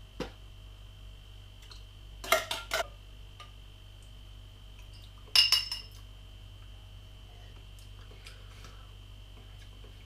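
A few short clinks and knocks of a drink can, glass or spoon being handled on a counter: a small one at the start, a quick cluster about two seconds in, and the loudest about five seconds in. A faint steady high-pitched tone runs underneath.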